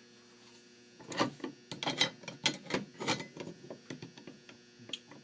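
Tools being handled, probably a crowbar being picked up and set against the lock and vise: a run of about a dozen irregular light clicks and knocks, stopping shortly before the end.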